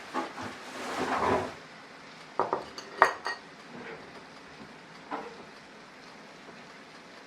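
Kitchen utensils and dishes clinking and clattering during cooking: a short scrape about a second in, then a few separate clinks, the sharpest with a brief ring about three seconds in, and one more later.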